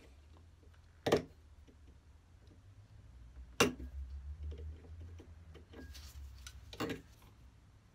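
Pliers and a screwdriver clicking against a steel bench vise while a bent brass hinge is twisted back into shape. There are three sharp clicks a few seconds apart over a faint low hum.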